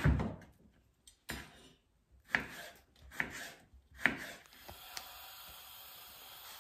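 A large kitchen knife cutting raw potato into thin strips: about five separate cuts, roughly one a second, followed by a faint steady hiss.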